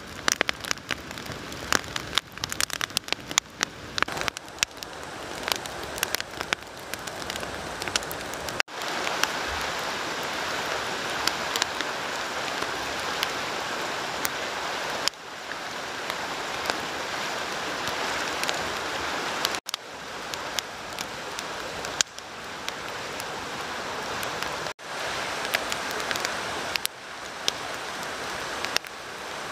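Wood fire crackling and popping in an open pit, the sharp cracks dense at first and sparser later, over the steady rush of a nearby stream.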